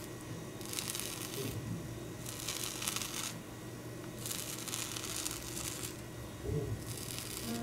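A metal fork cutting into a whipped, soufflé-style omelette with a thin browned skin: four scratchy, tearing strokes, each about a second long, with short pauses between them.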